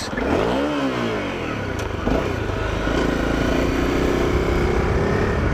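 Honda CRF250L's single-cylinder four-stroke engine revving quickly up and back down in the first second, an accidental blip of the throttle, then pulling steadily on the move with a slowly rising note.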